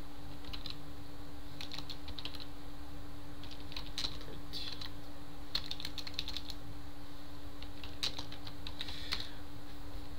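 Computer keyboard being typed on, in short irregular runs of key clicks with pauses between words. Under it is a steady low hum.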